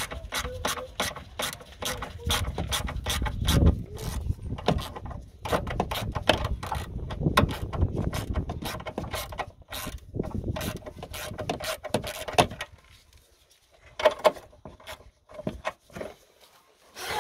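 Ratchet wrench with a 10 mm socket clicking in quick runs as it undoes a bolt, the pawl ratcheting on each back-stroke. The clicking stops about twelve and a half seconds in, and only a few scattered clicks follow.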